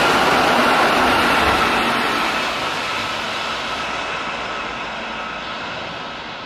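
Keihan electric commuter train passing at speed, its wheels running on the rails with a continuous rumble that fades steadily as the train moves away.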